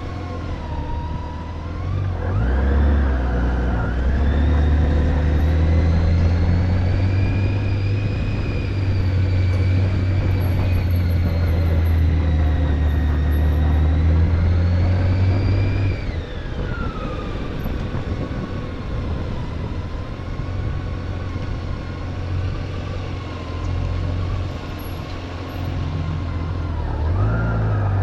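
Motorcycle engine under way: it speeds up about two seconds in, runs steadily, then drops back as the bike slows about halfway through, and picks up again near the end.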